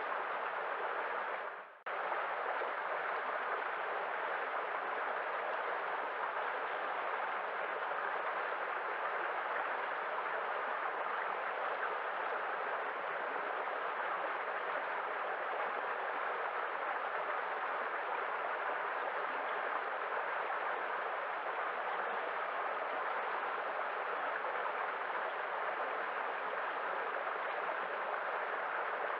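Waterfall rushing, a steady even roar of falling water with no pitch. About two seconds in it dips almost to silence and then cuts straight back in.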